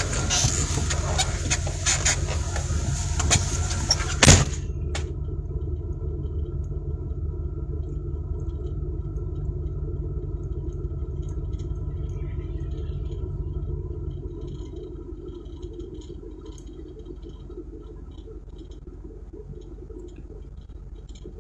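Rushing noise, then a car door slams shut about four seconds in, followed by a car's engine idling steadily, heard from inside the closed car and growing quieter in the second half.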